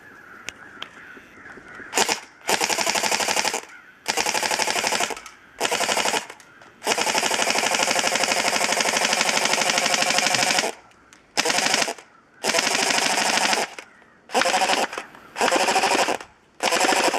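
Battery-powered SG 551 SWAT airsoft electric rifle firing on full auto in about ten bursts, most short and one about four seconds long in the middle. Its O-ring is damaged and leaking air, so the shots are weak and fall only a couple of feet out.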